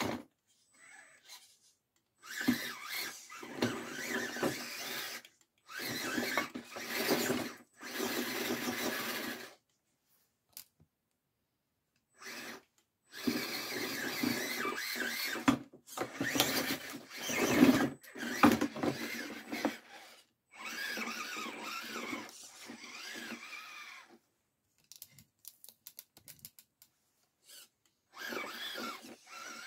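RGT Bowler 1/10 RC crawler's electric motor and gear train whining in repeated bursts of throttle lasting a few seconds each, with short pauses between, the pitch rising and falling with speed as it crawls over the planks and ramps.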